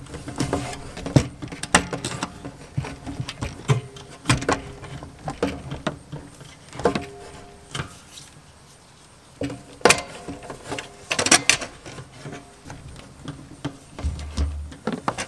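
Cables being pulled through conduit into a metal outdoor electrical sub panel: irregular clicks, knocks and rubbing as the lines drag and strike the panel box, with a quieter pause about two-thirds of the way through.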